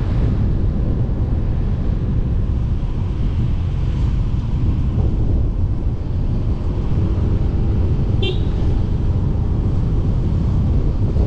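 Steady wind rush on the microphone of a moving motor scooter, with its small engine running underneath. A brief horn beep about eight seconds in.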